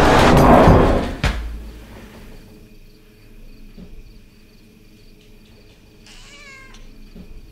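Horror-film sound design: a loud swelling rush of noise cut off by a sharp hit about a second in, then a low hum. Near the end comes a short, high, wavering cry or creak.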